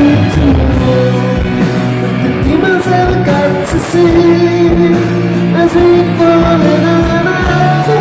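Rock band playing live: acoustic and electric guitars and drums, with long held notes over a steady beat.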